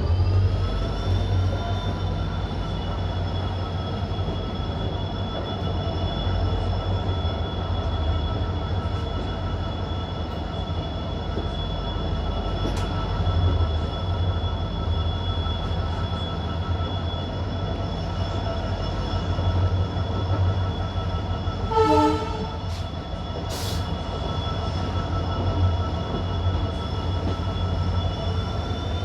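EMD-engined WDP4D diesel locomotive running steadily with a deep low hum and a high steady whine above it. About two-thirds of the way through, a short pitched sound cuts in briefly.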